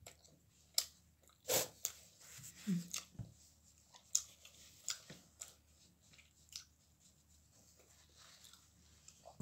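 Close-up eating sounds of someone chewing pizza: scattered sharp mouth clicks and smacks, one short hum about three seconds in, and a paper napkin wiped across the mouth.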